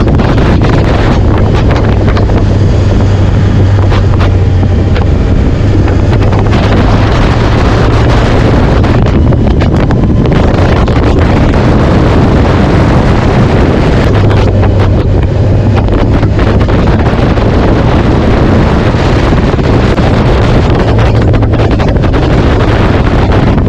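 Heavy wind buffeting the microphone while travelling, with a steady low drone underneath.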